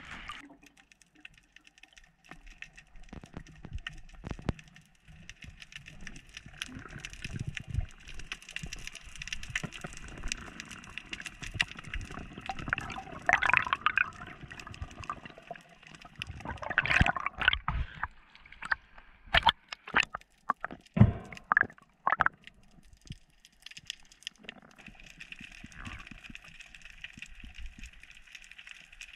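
Underwater sound around a spearfisher's camera: water gurgling and sloshing with scattered sharp clicks, and a run of louder knocks and surges a little past the middle.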